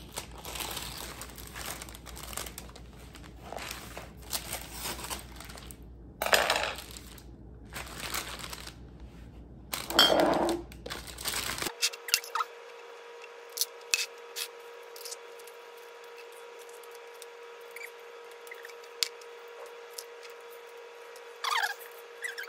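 Plastic flower sleeve crinkling and scissors snipping tulip stems, with a few louder rustles in the first half. After about twelve seconds it turns quieter, with occasional sharp clicks and snips as stems are trimmed and set into glass jars.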